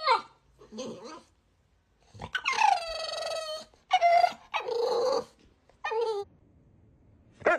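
Pit bull-type puppy howling: a string of short pitched howls and yelps, with one long wavering howl starting about two and a half seconds in and lasting over a second.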